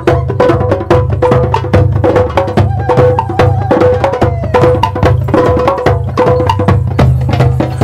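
Background music driven by fast, dense percussion strikes over a steady bass and a repeating melodic line.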